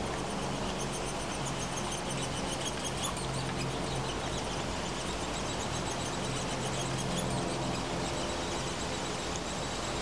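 Many short, high chirps or squeaks repeating rapidly over a steady low hum.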